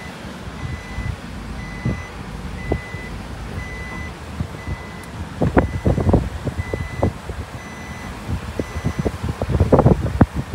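Vehicle reversing alarm beeping, a short high tone repeated roughly once a second, stopping shortly before the end. Scattered knocks and clatter, heaviest in the middle and near the end, sound over it.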